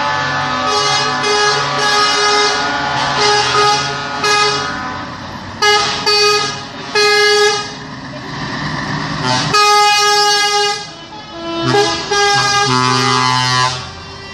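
Truck air horns sounding over running truck engines. Short toots in the first few seconds give way to longer, loud blasts from about halfway through, several horns overlapping.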